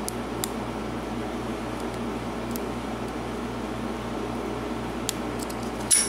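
A steady background hum, with a few faint metallic clicks from a pick and tension wrench working the pins of a pin-tumbler padlock, and a sharper click near the end.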